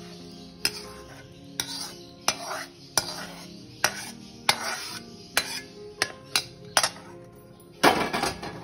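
Steel ladle scraping and knocking against a metal pan while thick tomato chutney is scooped out: a string of sharp metallic clinks, about a dozen, with scraping between them. The longest and loudest scrape comes near the end.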